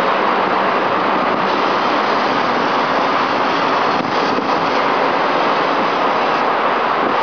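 Steady roar of city traffic from the wide avenue below, with a few faint cracks of distant fireworks about four seconds in.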